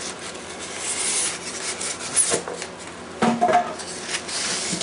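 Plastic bag crinkling and styrofoam packing rubbing as hands work the contents of a shipping box, with a few sharper crackles along the way.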